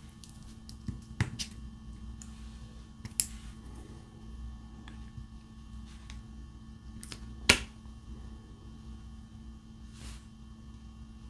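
Scattered small clicks and taps from a diamond painting drill pen picking up resin drills from a tray and pressing them onto the canvas, at an uneven pace, the sharpest one about two-thirds of the way through. A faint steady hum runs underneath.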